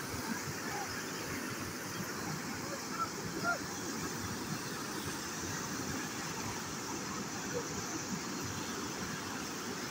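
Fast, turbulent canal water rushing steadily through a concrete sluice outlet.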